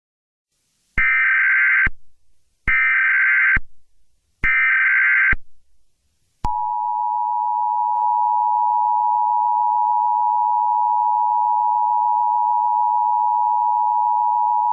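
Emergency Alert System tones: three short bursts of SAME header data, each about a second long, followed about six seconds in by the steady two-tone EAS attention signal, held for about eight seconds.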